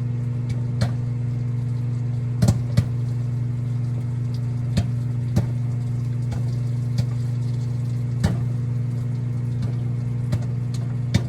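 Microwave oven running with a steady low hum while microwave popcorn pops sparsely inside the bag, about ten scattered single pops.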